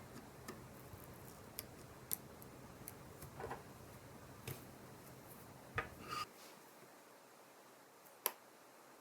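Scattered light clicks and taps of small hand tools and parts being handled during an iPhone 7 battery replacement, with the sharpest click near the end. A faint low hum underneath stops about six seconds in.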